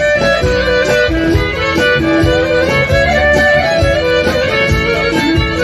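Live folk band playing an instrumental passage: violin and accordion carrying the melody over a steady beat.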